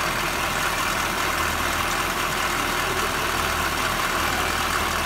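The noisy torque tube of a 2005 Corvette C6 automatic, heard close at the housing's open inspection hole with the driveshaft spinning inside, over the running engine: a steady mechanical drone with a low hum underneath. The noise is the sign of a worn torque tube that needs rebuilding.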